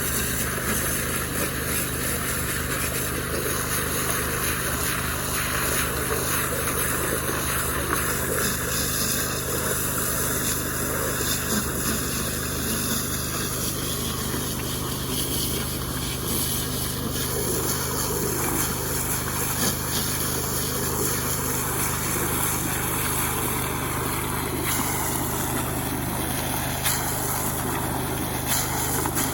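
Small Robin gasoline engine running steadily at a constant speed.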